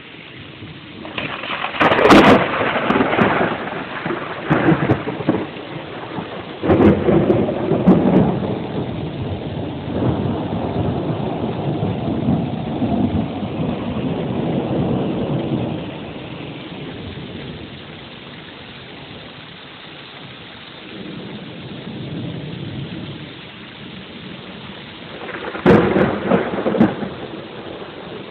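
Thunder over steady rain: a sharp crack about two seconds in, a loud clap near seven seconds that rolls into a long rumble, a fainter rumble later on, and another crack near the end.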